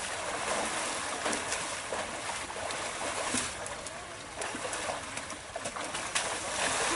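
Steady rush of river water, with a few short splashes.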